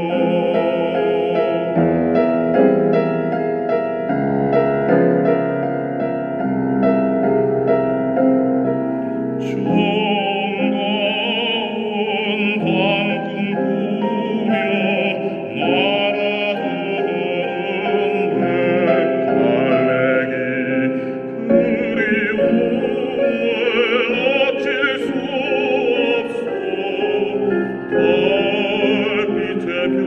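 Korean art song (gagok) in classical style. An instrumental passage of held chords plays first, then about ten seconds in a baritone enters, singing with a wide vibrato over the accompaniment.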